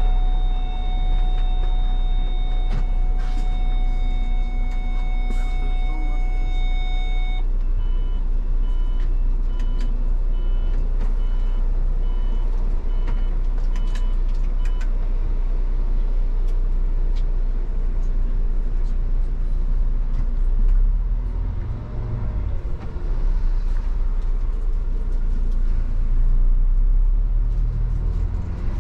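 Mercedes-Benz Travego coach's diesel engine running as it manoeuvres and pulls away, heard from the driver's cab. A steady electronic warning tone sounds for about the first seven seconds, then a pulsing beep, about one and a half a second, until about fifteen seconds in. The engine rises about twenty seconds in and again near the end.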